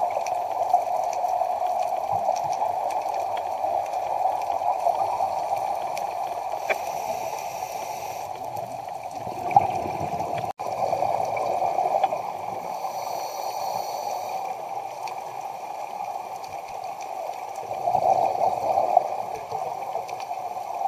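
Underwater sound picked up through a dive camera's housing: a steady, muffled rush of water. Twice it is joined by a hiss of about a second and a half, the scuba regulator's intake as the diver breathes in. About halfway through the sound drops out for an instant.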